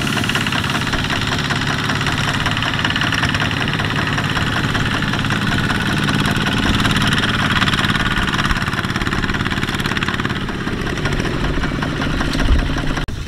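Kubota ZT155 single-cylinder diesel on a two-wheel walking tractor, running steadily with a fast, even chugging beat as it pulls a loaded trailer through deep mud.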